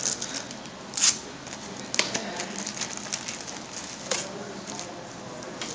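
Foil Yu-Gi-Oh! booster-pack wrappers crinkling and rustling as packs are pulled from their cardboard box and set on the table, with sharp rustles about a second in, at two seconds and just after four seconds.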